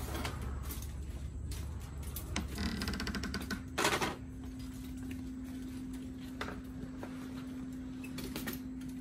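Wire folding laundry cart rattling as it is wheeled along, with a quick run of clicks partway through and a knock, followed by a steady hum.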